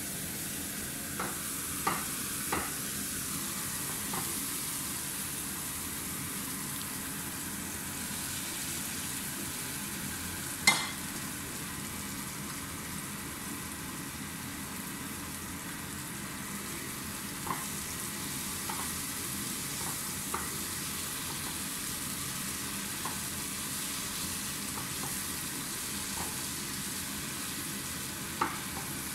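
Diced meatloaf with onion, garlic and tomato sizzling in a nonstick frying pan while being stirred with a wooden spatula: a steady frying hiss with a few sharp knocks, the loudest about a third of the way in.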